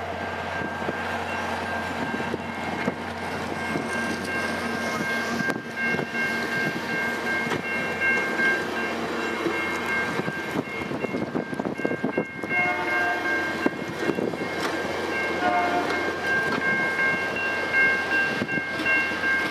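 Via Rail passenger train's stainless-steel Budd cars rolling steadily past, wheels clattering and clicking on the rails, with high steady whining tones sounding on and off over the rumble.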